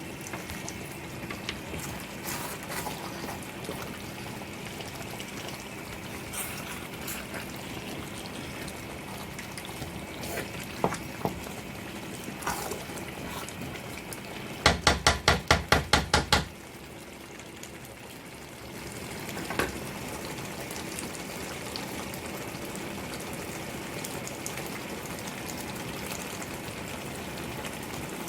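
Pot of egusi soup simmering steadily on the stove with a soft bubbling hiss. About two thirds of the way in there is a quick run of about eight sharp clicks, after which the hiss drops away for a couple of seconds and then comes back.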